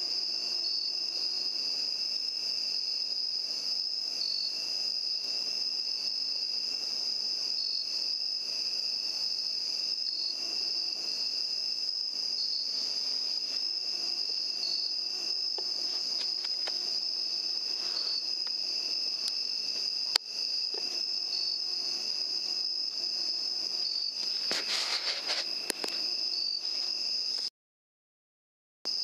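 Steady chorus of night insects, a high constant trill with a fainter lower one beneath it. A single sharp click sounds about 20 seconds in, and a short spell of crackling rustle follows around 25 seconds.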